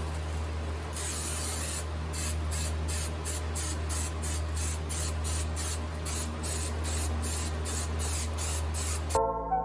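Aerosol can of 3M high-strength 90 spray adhesive hissing in short repeated bursts, about two to three a second, over a steady low hum.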